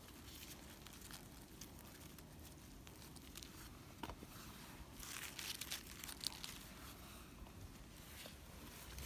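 Faint rustling and small crackles in dry leaf litter and pine needles as a gloved hand picks chanterelle mushrooms, with a slightly louder patch of rustling about five seconds in.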